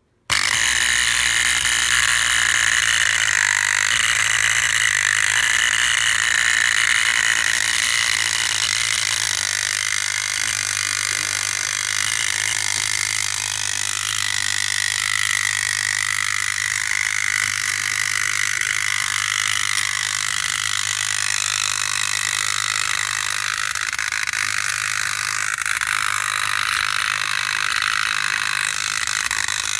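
Arnold MAC 700 tin wind-up toy motorcycle's clockwork motor running in place: a steady mechanical whirring that starts suddenly as the toy is let go and runs on, a little quieter toward the end.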